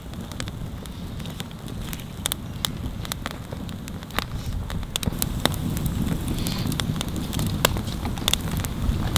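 Open wood fire crackling, with irregular sharp snaps and pops over a steady low rumble.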